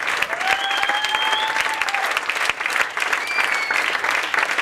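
Theatre audience applauding steadily with dense clapping, with a few long held calls from the audience rising above it.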